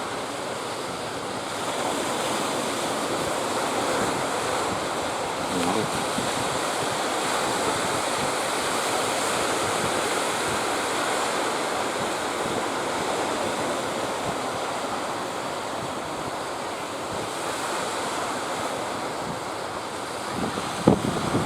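Sea surf washing and breaking steadily, with strong wind buffeting the microphone. A few sharp knocks come near the end.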